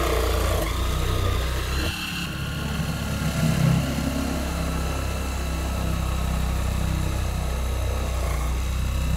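Belt-driven electric motor of a modified Dremel WorkStation 220 drill stand running steadily with a low hum and faint high whine, while a small bit drills into MDF board.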